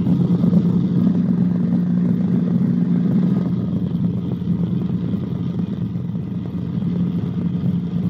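Cabri G2 helicopter in level cruise: a steady drone of its four-cylinder Lycoming piston engine and rotors, with a strong low hum, picked up through the cockpit headset.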